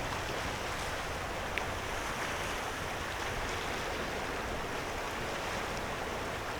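Small sea waves washing steadily on the shoreline, an even rushing hiss.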